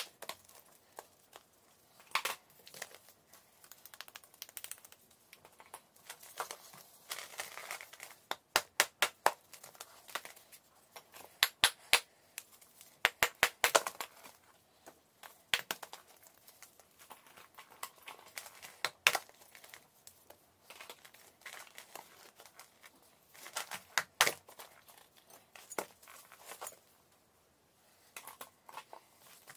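A large block of natural chalk being broken apart by hand: sharp cracks and snaps as slabs split off, in irregular clusters, with softer crumbling and crunching of chalk between them.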